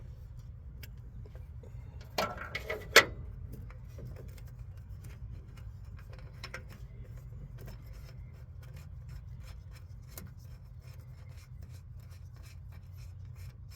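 Hand scraping and rubbing on a metal radiator fitting being cleaned up so it will seat straight, with a burst of louder scrapes ending in a sharp clink about two to three seconds in, then light scattered ticks and scratches.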